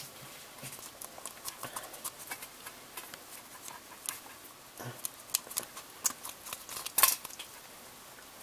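Golden hamster's claws scratching and tapping on the metal floor and sides of a tin: irregular light clicks, with a sharper clatter about seven seconds in.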